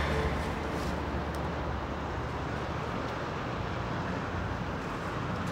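Steady outdoor traffic noise: an even low rumble of distant road traffic, with a few faint light ticks.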